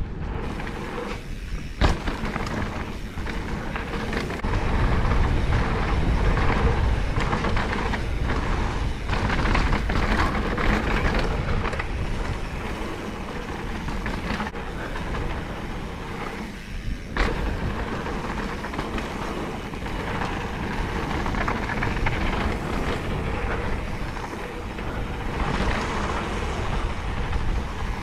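Mountain bike ridden fast down a dirt trail: wind buffeting the microphone with a steady rumble, tyres rolling on dirt and the bike rattling, with a few sharp knocks over bumps.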